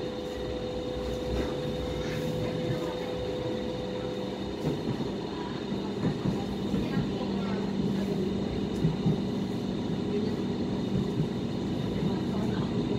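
Inside a Hong Kong MTR Light Rail car running along the track: a steady rumble of the car and its wheels on the rail. A steady humming tone gives way to a lower one about five seconds in, with occasional short knocks over the rail.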